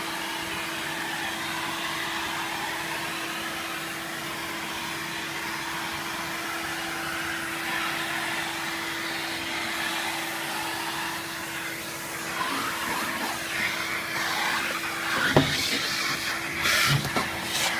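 Vacuum cleaner running steadily with a constant hum, its hose nozzle sucking dust off a board. From about twelve seconds in, the sound turns uneven, with a few sharp knocks and rattles near the end as the nozzle bumps against the work.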